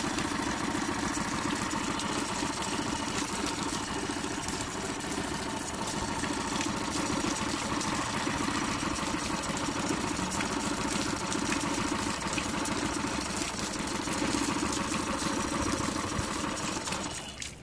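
Nissan 9.8 hp four-stroke outboard engine idling steadily with its cowling off, running smooth and even now that its carburetor has been cleaned.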